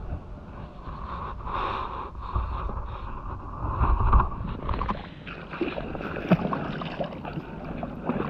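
Wind rumbling on the microphone, with clothing rustle and handling noise as the angler lifts a northern pike. About five seconds in the rumble drops away and scattered footsteps and light splashes follow as he steps into the shallows.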